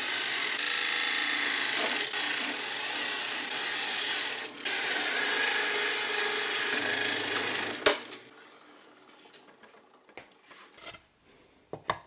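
Drill press boring a 2-inch hole in a wooden board with a Forstner bit: a loud, steady cutting noise that eases briefly about four and a half seconds in and stops just before eight seconds. Faint knocks of handling follow.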